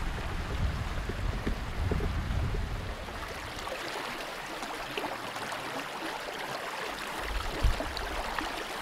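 Small moorland stream running and trickling over stones, a steady rushing hiss. Wind rumbles on the microphone for about the first three seconds and again briefly near the end.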